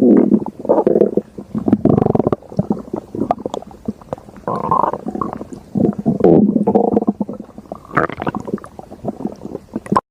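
A human stomach growling: repeated bouts of gurgling rumbles with short pauses between them, cutting off abruptly just before the end.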